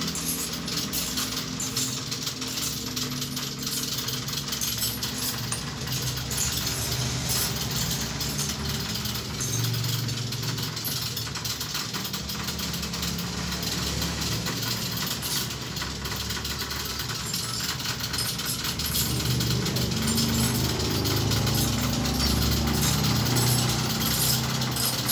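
Machine-shop machinery running: a steady low hum under a dense, rapid metallic rattle, growing somewhat louder near the end.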